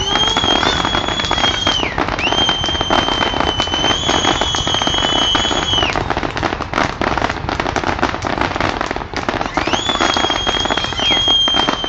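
Fireworks crackling and popping in rapid succession. Over them, four long, steady high-pitched whistles, each lasting from one to four seconds, sliding up at the start and dropping away at the end.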